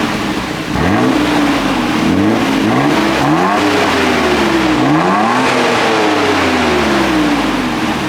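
Nissan Skyline GT-R R32's RB26DETT twin-turbo straight-six on its stock exhaust, revved about six times: quick blips early on, then two longer revs whose pitch sinks slowly back toward idle.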